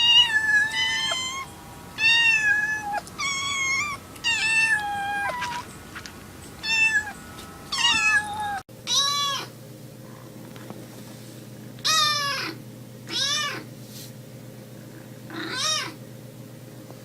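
Domestic cat meowing repeatedly, about six meows in short succession; after an abrupt cut, a cat meows four more times, the calls spaced further apart.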